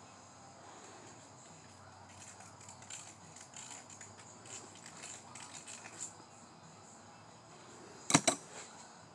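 Hand tools working on an engine head: faint scattered clicks and light ratcheting, then two sharp metallic clicks close together about eight seconds in.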